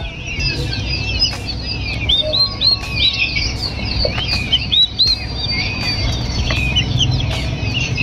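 A brood of peafowl chicks (peachicks) peeping continuously: many short, high chirps and rising-then-falling calls overlapping, over a low steady rumble.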